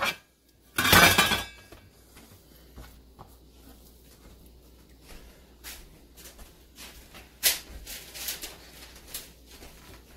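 Stainless steel bench scraper chopping through a thick rope of dough onto a plastic cutting board and clattering down on it about a second in, followed by scattered light taps and knocks.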